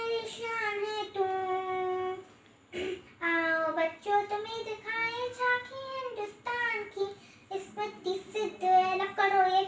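A young girl singing unaccompanied, holding long notes, with a short break for breath about two and a half seconds in.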